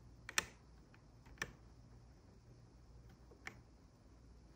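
A few small, sharp plastic clicks as a plastic pry tool works at the clips and butterfly-mechanism parts in a 2018 MacBook Pro's spacebar well: a quick pair near the start, another about a second later and one more about three and a half seconds in.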